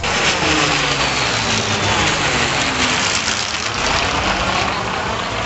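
Piston-engined propeller aircraft flying past overhead, a steady loud engine drone whose tone sweeps down and then back up as it passes.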